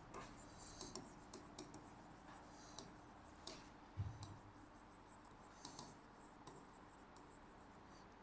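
Faint scratchy strokes of handwriting, with one soft low thump about four seconds in.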